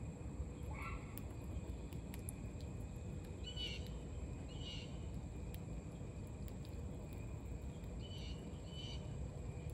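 Short bird chirps, five in all: one about a second in, two in the middle and two near the end. A steady low background rumble runs underneath.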